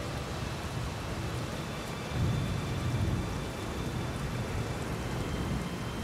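Steady rain, with a low roll of thunder starting about two seconds in and fading after about a second.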